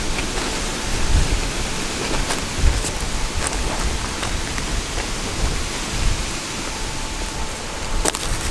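Strong gusty wind buffeting the microphone with a heavy low rumble over a steady rushing noise, with a few sharp clicks.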